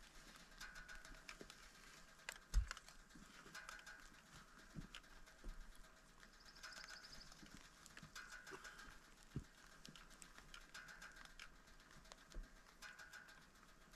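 Near silence broken by faint, scattered light taps and knocks, with one louder thump a few seconds in.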